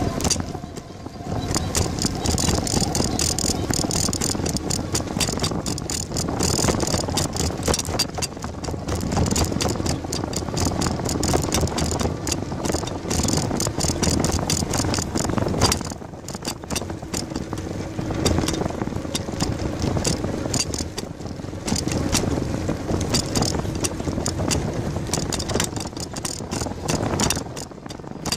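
Bicycle being ridden along a paved path: a continuous rattling clatter with tyre noise, easing briefly about a second in, midway and near the end.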